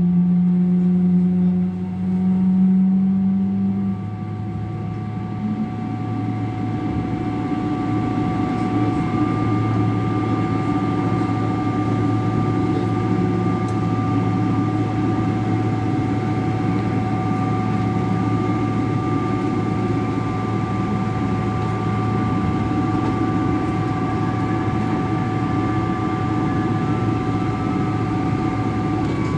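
Steady cabin noise of a Boeing 777-300 airliner on the ground: a low hum and a rush of air with steady high whining tones from the engines and air systems. A louder low hum stops about four seconds in.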